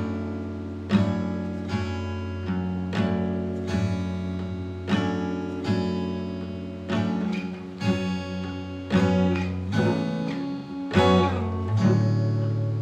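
Song intro on acoustic guitar: chords plucked and strummed about once a second, each one left to ring and fade.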